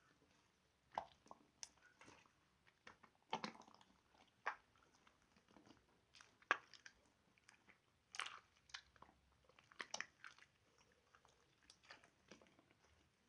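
Slime being squeezed and played with by hand, making soft, irregular sticky clicks and pops, with one sharper pop about six and a half seconds in.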